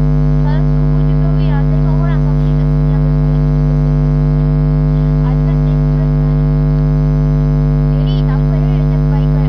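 Loud, steady electrical mains hum with many buzzing overtones, unchanging throughout and drowning out faint speech underneath.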